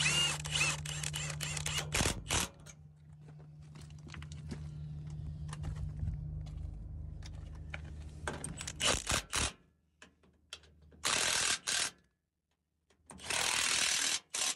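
Impact wrench run in short bursts, tightening the 3/4-inch side bolts on a manure spreader's apron chain adjuster. A steady low hum runs underneath and stops about two-thirds of the way through.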